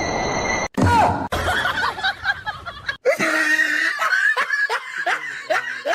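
Human laughter: after two abrupt cuts, a run of short repeated laughs, about two to three a second, through the second half.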